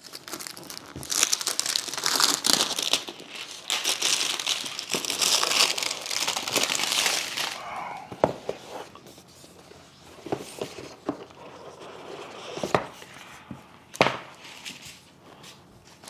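Plastic shrink wrap being torn and crinkled off a cardboard keyboard box for about seven seconds. Then quieter rustling as the box is opened, with a few sharp knocks.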